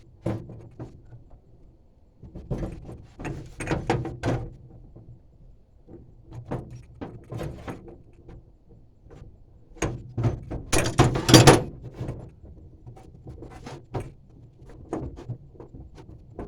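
Wrenches and metal propane fittings clinking, knocking and scraping in an irregular string of handling sounds, with the loudest, longest burst of rattling clatter a little after ten seconds in.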